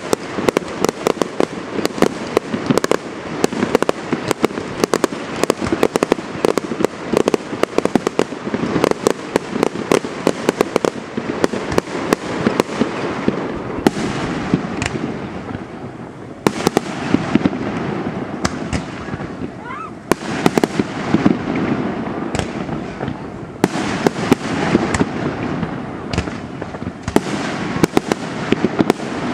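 Aerial fireworks display: a rapid run of shell bursts and crackling reports that thins out for a few seconds around the middle and then picks up again.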